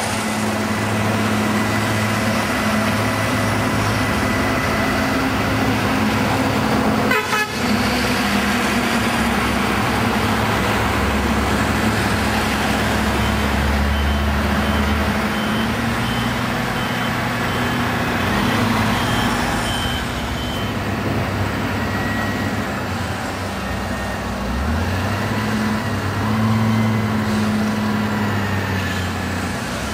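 Heavy diesel trucks and earth-moving machines running, a steady engine hum with the engine note rising and falling as they work. There is a brief break about seven seconds in.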